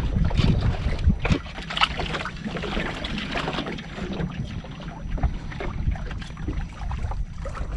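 Sounds aboard a small wooden fishing boat in shallow water: irregular knocks and splashes from the hull and gear, over a low rumble of wind on the microphone.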